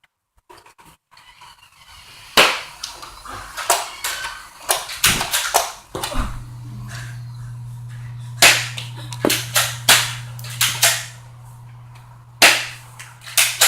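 Nerf foam-dart blasters firing: a long, irregular run of sharp snaps and pops, some in quick pairs and triplets. A steady low hum comes in about six seconds in.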